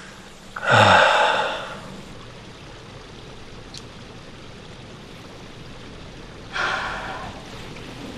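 A person gasping loudly, then a second, shorter gasp about six seconds later.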